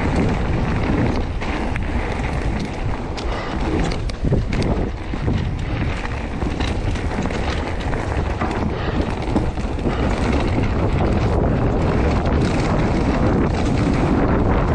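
Canyon Strive:ON e-mountain bike being ridden, with loud wind noise on the microphone and an irregular clatter of clicks and knocks throughout. The rattle is the one blamed on the bike's Bosch Performance Line CX Gen4 drive unit.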